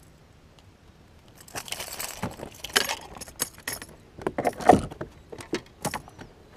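Metal clinking and jangling of a crankbait's hooks with irregular knocks and rustling as a small smallmouth bass flops while being unhooked, starting about a second and a half in, with the loudest knock a little over a second before the end.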